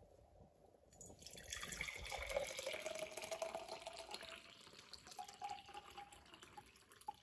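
Eggplant juice poured in a thin stream from a glass measuring cup into a glass mason jar, starting about a second in. The splashing carries a tone that rises steadily as the jar fills.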